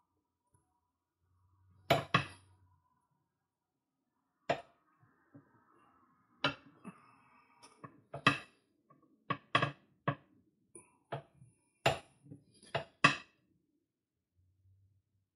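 Steel tire irons clinking and knocking against an alloy wheel rim as a tire bead is levered over it by hand: a dozen or so sharp metallic clinks at uneven intervals, with a faint scrape a few seconds in.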